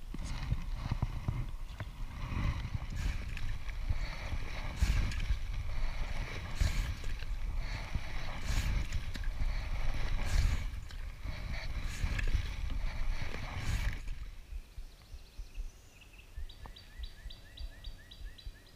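Oars of an inflatable fishing boat being rowed, a swish and knock about every two seconds over a low rumble. Near the end, a spinning reel is cranked, a quick even run of ticks.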